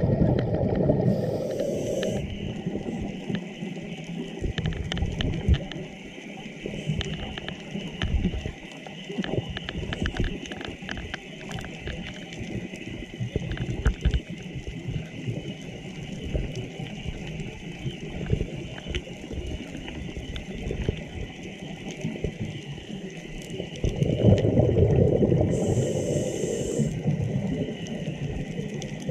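Underwater sound through a camera housing during a scuba dive: a diver's regulator exhaling bubbles in rumbling bursts at the start and again near the end, with muffled water noise and scattered short clicks between.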